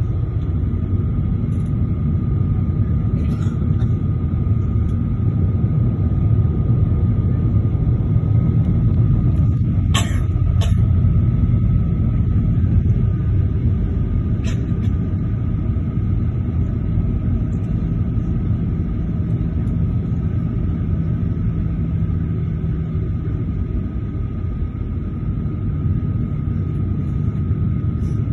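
Jet airliner taxiing, heard from inside the cabin: a steady low rumble of engines and rolling gear with a thin steady whine over it. There are a few short clicks, two close together about ten seconds in and one a few seconds later.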